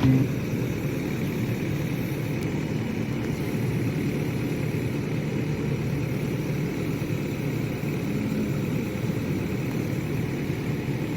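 Heavy equipment engine running steadily at an even pace, a low continuous drone with no change in speed.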